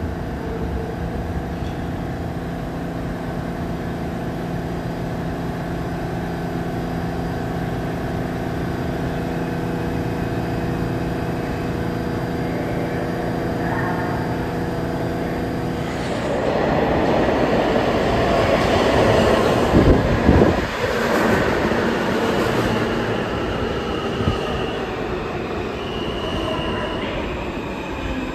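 NYC Subway R160A-1 train running on the tracks. For about the first half there is a steady hum of several tones. About halfway it turns into a louder rush of wheel-on-rail noise with a few thuds, and high-pitched wheel squeal near the end.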